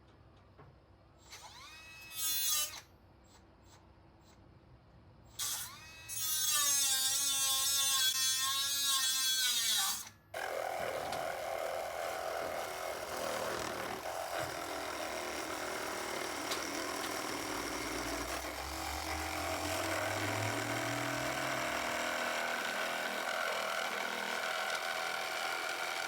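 Handheld power tool running: two short bursts whose pitch wavers with the trigger, then a longer steady run lasting most of the rest.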